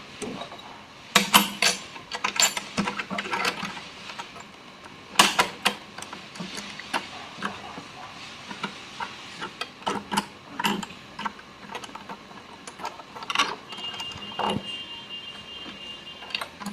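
Irregular clicks, taps and knocks of small metal parts being handled and fitted back onto a sewing machine, as a plate and its screw are put back. A thin high tone runs for a couple of seconds near the end.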